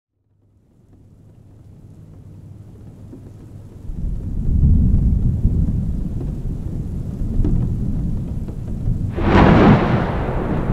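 Thunderstorm: a low rumble of thunder fades in over rain and grows loud about four seconds in. A sharper thunderclap breaks near the end.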